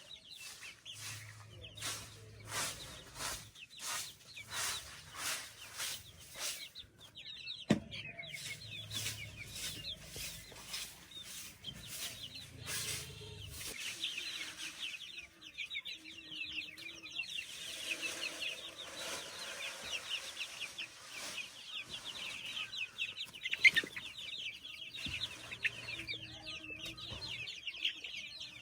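Chickens clucking and calling, many short high calls overlapping densely through the latter part. In the first part a series of short rustling or scraping strokes comes about twice a second, and a single sharp knock sounds nearly eight seconds in.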